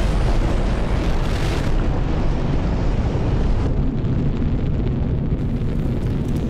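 Saturn V rocket launching: a loud, continuous deep roar from its first-stage engines at liftoff, growing duller about four seconds in.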